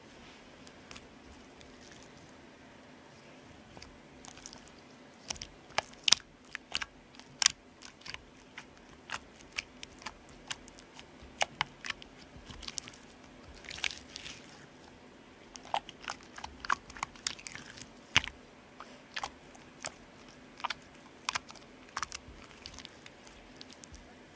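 Borax slime being pressed, folded and pulled off a glass tabletop close to a microphone, giving irregular sharp wet pops and clicks. Only a few come in the first seconds; from about four seconds in they come one to three a second.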